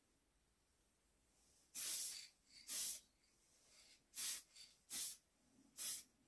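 Aerosol can of spray varnish hissing in five short, light bursts, the first about two seconds in, as a sealing top coat is dusted onto an antler.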